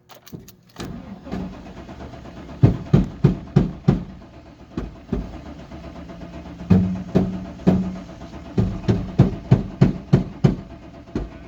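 1999 Chevy Suburban engine being cranked by its starter for about ten seconds, turning over with a steady rhythmic pulsing but never catching. It is a crank-no-start that the owners put down to a dead fuel pump delivering no fuel.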